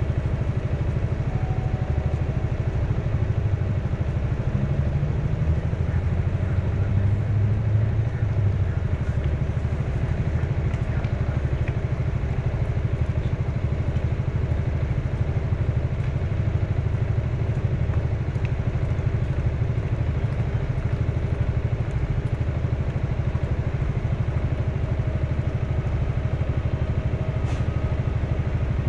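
Motor vehicle engine running steadily, its pitch rising briefly a few seconds in.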